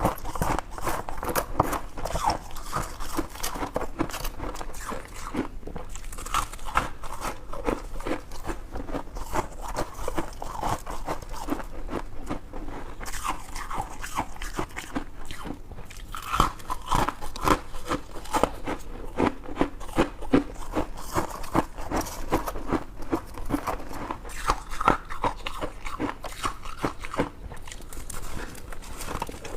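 Close-miked chewing of white freezer-frost ice: a steady run of crunching bites, many to the second.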